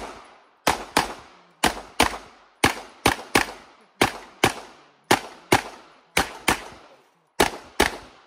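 Rapid handgun fire during a USPSA stage run: about sixteen shots, mostly fired as pairs with roughly half a second between pairs. Each shot is a sharp crack that trails off in echo.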